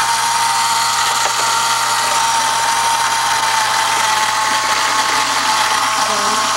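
Small electric gear motor running steadily with a constant whine, winding up the string that drives a homemade Rube Goldberg machine.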